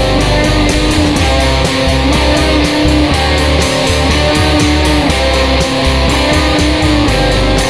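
Background rock instrumental with electric guitar over a bass line and a steady drum beat.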